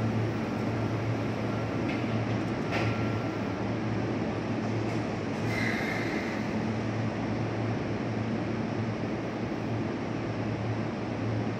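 Sotetsu 12000 series electric train standing at an underground platform, its onboard equipment humming steadily. A thin high tone fades out about four seconds in, and a few faint clicks come in the first half.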